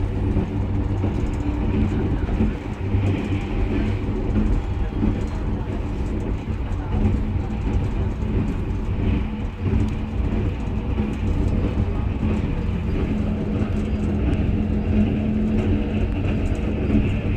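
Passenger train running over a river bridge, heard from inside the carriage: a steady rumble with a low hum underneath.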